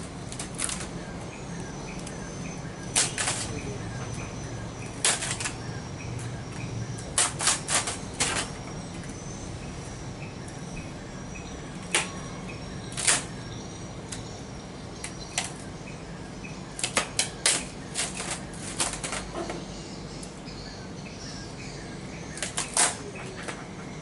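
Coconut-shell charcoal fire under a wok being fanned and tended: scattered sharp cracks and flaps, some in quick clusters of three or four.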